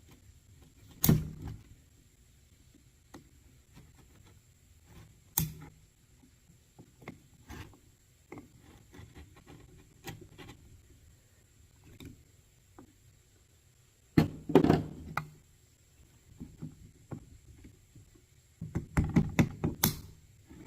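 Hard knocks as a part is driven into a power steering pump: single strikes about a second in and near five seconds, a cluster near fourteen seconds and a quick run of taps near the end, with faint clinks of handling between.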